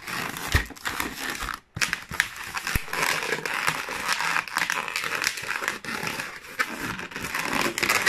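Long latex modelling balloons rubbing and crackling against each other and the hands as they are twisted and pressed together, with a short break about one and a half seconds in.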